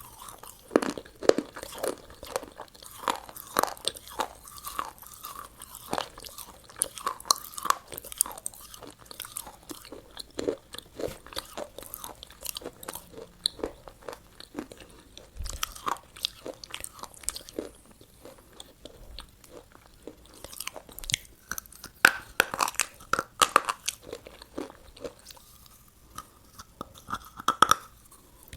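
Close-miked mouth sounds of someone biting and chewing crunchy McDonald's food: a steady run of crisp, irregular crunches, with a few quieter spells and bunches of louder bites.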